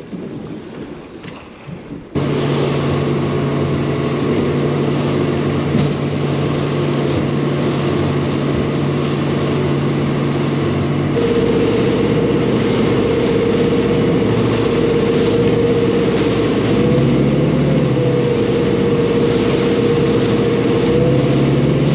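Offshore 25 motorboat's engine running steadily under way, with wind and water noise. It starts suddenly about two seconds in, and its note shifts higher about halfway through.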